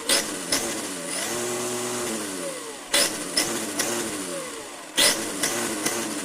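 Tamiya TT-01 RC car's electric motor and gear drivetrain revved up and down with the wheels in the air, a whine rising and falling with the throttle. Sudden throttle punches bring loud sharp clacks from the gears, the racket of an excessively worn spur gear and a worn motor pinion.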